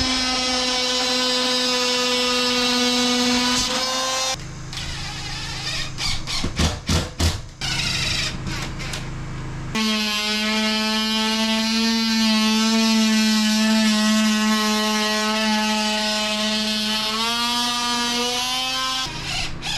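A power tool's electric motor running at a steady pitch for several seconds, broken by a spell of uneven noise and sharp knocks in the middle, then running steadily again with a small shift in pitch near the end.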